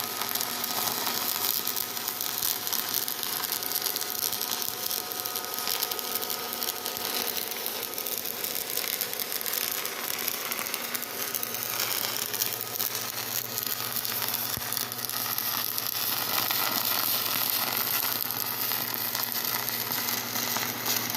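Stick welding arc crackling and sizzling steadily as the electrode burns along a weld bead.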